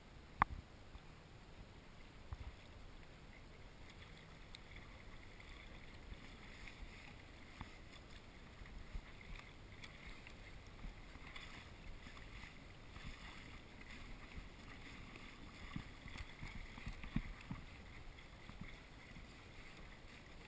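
Water lapping and splashing softly against a kayak hull as it moves across calm sea. A sharp click comes about half a second in, and a few low knocks come later.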